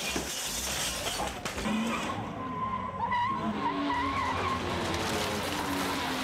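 Heavy machinery at work demolishing a house: a continuous machine rumble, with a wavering high squeal lasting a couple of seconds from about two seconds in.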